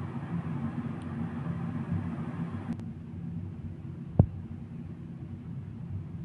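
A steady low background hum, with one dull thump about four seconds in. A higher hiss over the hum cuts off abruptly shortly before the thump.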